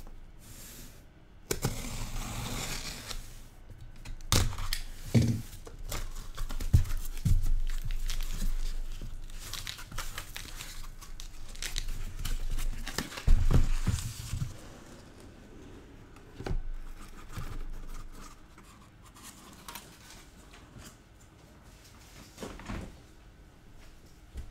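Packaging of a sealed case of trading-card boxes being torn open by hand: a run of tearing and crinkling rips with knocks of cardboard for the first half or so, then quieter handling with a few clicks.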